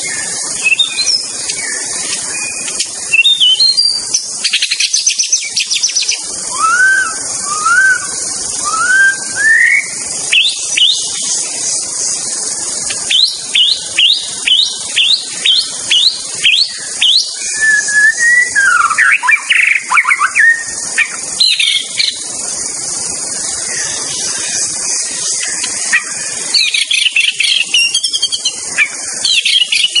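White-rumped shama (murai batu) singing: a long run of varied whistled phrases, with a quick series of rising notes about halfway through, over a steady high hiss.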